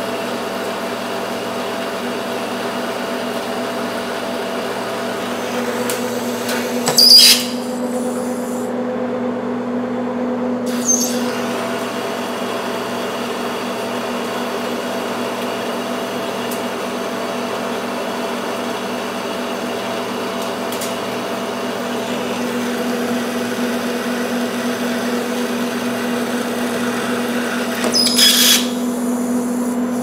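Old Monarch engine lathe running under power with a steady gear hum while a carbide insert turns down a round bar of mystery metal in light cuts. Two short, sharp, loud bursts break through, about seven seconds in and again near the end.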